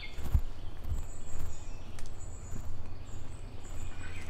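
Footsteps on a muddy dirt trail with a steady low rumble of wind and handling on the microphone, a few soft thumps among them. A thin, high-pitched call repeats faintly in the background.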